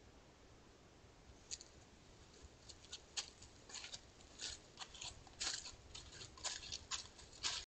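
Wild boar moving through drought-dry grass and litter: irregular sharp crackles and rustles that start about a second and a half in and come thicker and louder toward the end.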